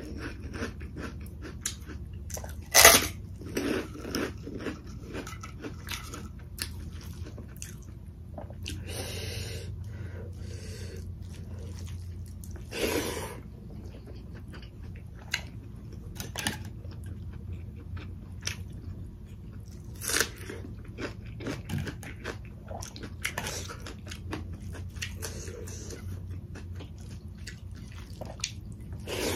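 Close-miked eating: crisp bites crunching into a fried snack stick, the loudest about three seconds in, then chewing and smacking at intervals.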